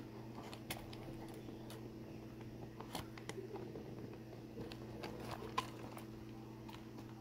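Faint scattered clicks and taps from a small plastic RC truck being handled, its body shell and wheels knocking lightly under the fingers, over a steady low hum.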